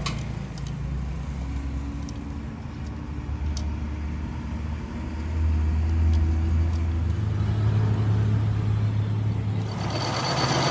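A low, steady machine drone that grows louder about five seconds in and steps up in pitch about two seconds later, with a few faint ticks.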